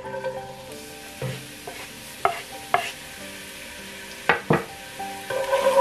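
Chopped spring onion sizzling and frying in hot oil in a nonstick pan, the hiss rising about a second in. A few sharp knocks land around the middle.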